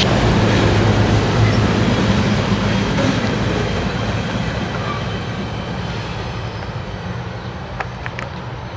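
Loaded refrigerated boxcars of a freight train rolling past, a steady rumble of steel wheels on rail that fades as the train moves away. A few sharp clicks come near the end.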